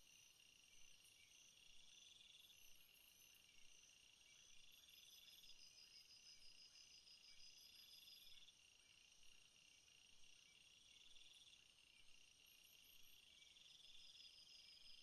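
Near silence with faint insect chirping: high, pulsed trills at several pitches, repeating every few seconds.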